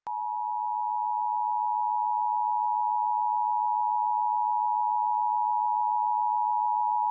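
Emergency Alert System attention signal: the steady dual-tone alert of 853 Hz and 960 Hz sounded together, starting sharply at the outset and held unbroken. It is the alert tone that opens an EAS message, here a Required Monthly Test.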